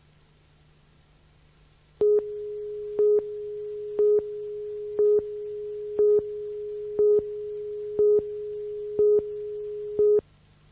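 A steady electronic tone with a louder beep on it once a second, nine beeps in all, that starts abruptly and cuts off suddenly. A faint low hum lies under it.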